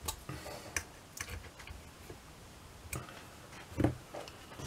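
Light, irregular metallic clicks and taps of brass clock parts being handled as a torsion clock's pillars and movement are fitted onto its brass base, with a duller knock a little under four seconds in.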